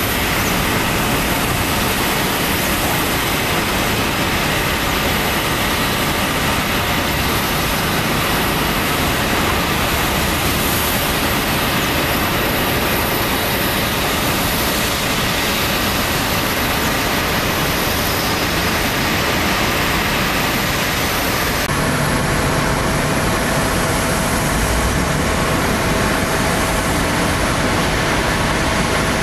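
Steady, loud jet noise from the Pratt & Whitney PW1100G geared turbofans of an Airbus A321neo, an even rumble and hiss with no clear rise or fall. About 22 seconds in the sound changes abruptly: the hiss drops and a low hum and a mid-pitched tone come forward.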